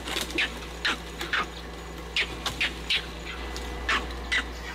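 An animal giving short, sharp calls again and again at an irregular pace, each call falling in pitch.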